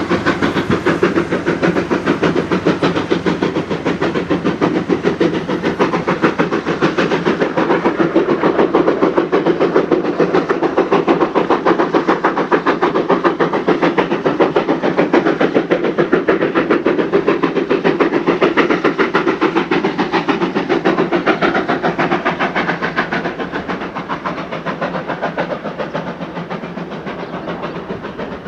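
Steam train hauled by ex-SAR Class 19D locomotive 3321 running past: a steady rush of steam and rolling noise with a fast, even beat, easing off over the last few seconds.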